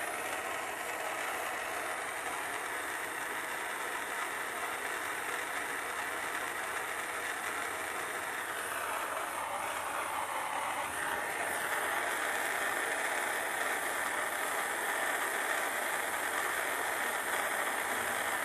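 Handheld gas torch flame hissing steadily as it heats a copper pipe joint for soldering.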